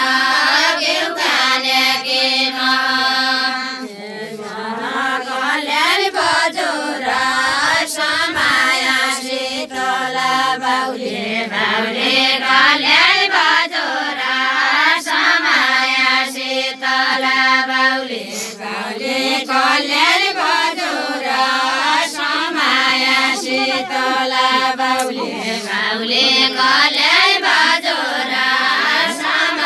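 A group of women singing a traditional Nepali Deuda song in unison, with no instruments. The melody rises and falls in repeated phrases, with short pauses between lines.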